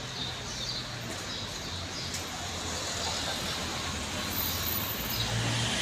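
Town street traffic: motor vehicles running, a steady hum of engines and road noise.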